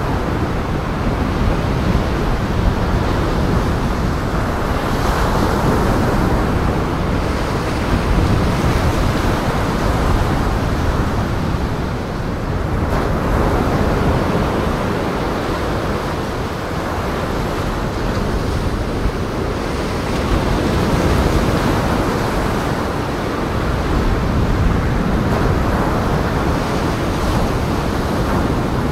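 Heavy lake surf breaking and washing over a rocky breakwater, a continuous loud rush of water that swells and eases every few seconds, with wind.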